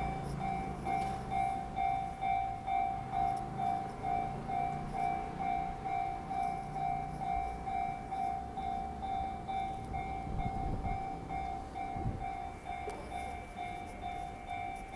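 Japanese railway level-crossing alarm ringing its electronic bell steadily, a little over two rings a second, over the low rumble of a train.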